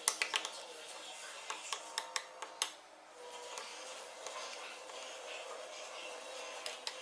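A quick series of sharp clicks and light taps over the first three seconds, then only faint, steady background sound.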